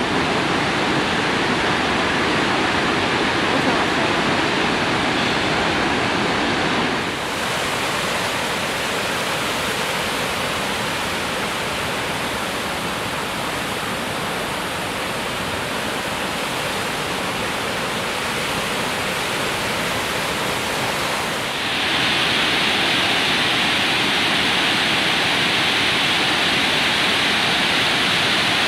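Steady rush of a tall waterfall and white-water cascades over rocks. The sound shifts abruptly twice, about 7 and 21 seconds in, and is louder and hissier after the second change.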